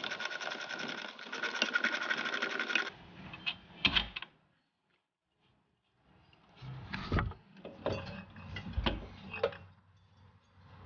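A small power tool runs for about three seconds with a rapid, even clatter. After a short silence come several separate metal clunks and knocks.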